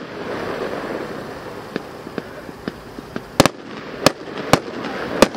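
Consumer aerial fireworks going off: faint crackling, then sharp bangs of shots bursting overhead, a close pair about three and a half seconds in followed by single bangs about every half second.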